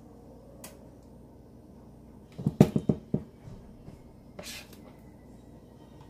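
A spoon knocking and scraping against a mixing bowl while scooping muffin batter, with a quick run of about five knocks midway and a short scrape a little later.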